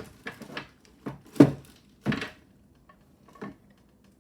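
Jewelry being handled: a handful of short clicks and light knocks, the loudest about a second and a half in and another just after two seconds.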